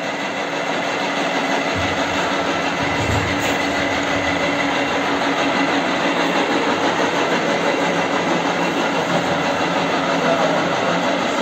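Horizontal milling machine running steadily under power table feed, its gear cutter turning on the arbor over a gear blank held in a dividing head. A deeper rumble joins in about two seconds in.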